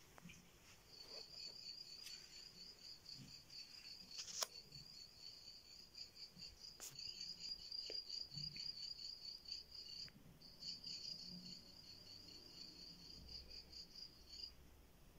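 A cricket chirping in a fast, even pulsing trill, faint and high-pitched, broken once briefly about two-thirds of the way through and stopping shortly before the end.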